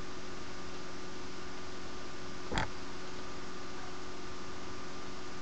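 Steady electrical hum with a hiss, and one short click about halfway through.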